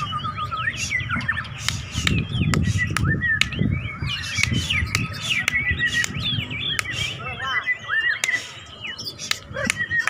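Caged white-rumped shamas (murai batu) singing against each other in a contest: a dense stream of quick, varied whistles, glides and sharp chirping notes. A low murmur runs underneath.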